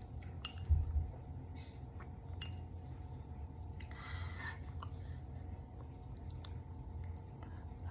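Small clicks and clinks of a feeding spoon against a baby-food bowl, with a low bump about a second in and a short wet, hissy scraping sound near the middle.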